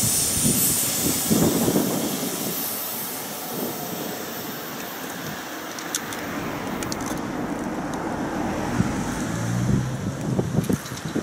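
EF65 electric locomotive passing close by and pulling away, its wheel-on-rail noise loud at first and then fading as it recedes. Near the end a low steady hum and some clattering come up.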